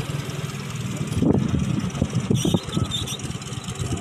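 Off-road buggy's engine running and revving unevenly under throttle as it drives over rough ground, the strongest rev about a second in.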